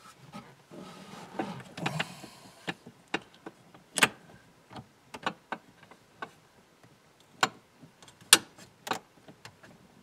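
Irregular clicks and knocks of an 8 mm wrench working a screw on the blend door actuator up under a truck dash, with a rustling scrape of hand and tool against the dash plastics in the first couple of seconds.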